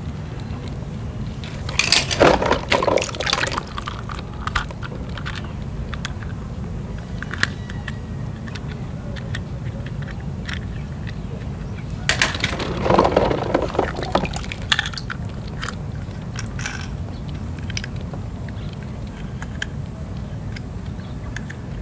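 Water sloshing and splashing in a plastic tub of floating plastic balls, in two bursts of about two seconds each, as hands reach in and lift toy cars out. Scattered light clicks of plastic knocking against plastic, over a steady low background rumble.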